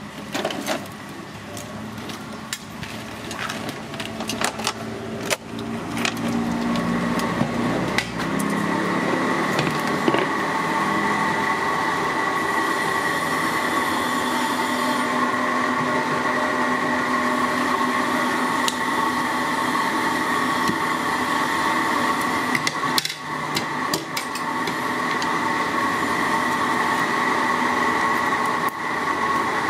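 Clatter and knocks from handling for the first few seconds. From about eight seconds in, a steady mechanical hum carries two high, even whining tones, broken by a few sharp knocks. Near the end a steel cleaver chops into a mantis shrimp on a wooden chopping board.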